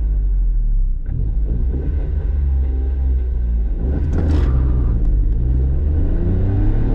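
Peugeot 107's 1.0-litre three-cylinder petrol engine heard from inside the cabin, held at raised revs at a standstill for a launch. About four seconds in there is a short hiss, and then the engine note climbs as the car accelerates hard from rest.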